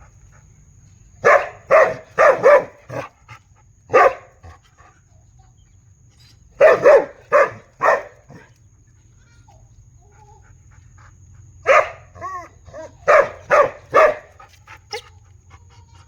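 Big dog barking in groups of several loud barks with pauses between, and a few short whining yelps about twelve seconds in. A steady low hum runs underneath.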